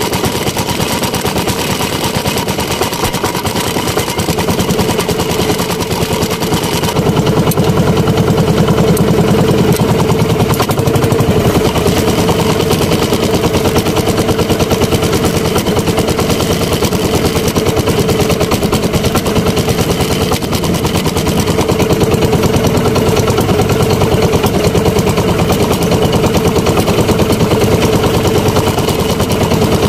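Outrigger boat's small engine running steadily under way, a fast even chatter of firing pulses, louder from about seven seconds in.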